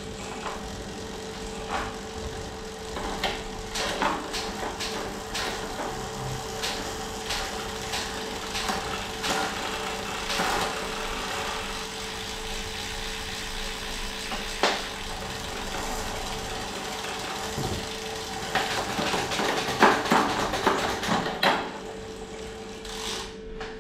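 Road bike's Shimano 105 drivetrain worked during derailleur adjustment: the chain running over the sprockets with scattered clicks and ticks, over a steady hum.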